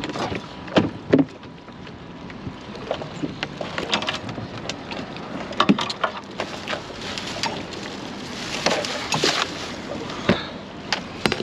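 Scattered knocks and clatters of gear being handled aboard a small fiberglass boat, including the lid of a plastic cooler being opened, over a steady background hiss.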